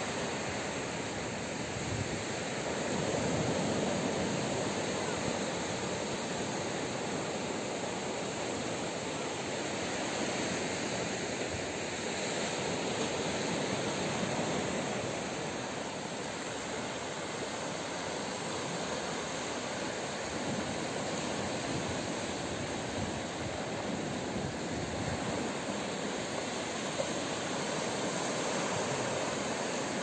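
Sea surf breaking and washing up a sandy beach: a steady rushing noise that swells and eases as the waves come in.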